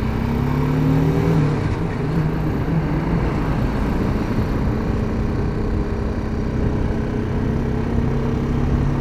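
BMW G310GS single-cylinder motorcycle engine running while riding along a road, under wind and road noise. The engine note rises a little over the first second and a half, then holds steady.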